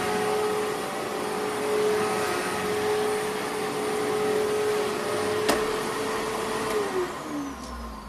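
Vacuum cleaner motor running steadily with a high whine, a sharp click about five and a half seconds in, then the motor winding down with falling pitch and level near the end.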